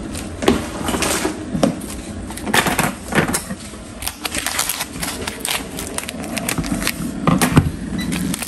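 Irregular clicks, taps and rustling from handling food and kitchen items, with sharp knocks scattered unevenly throughout.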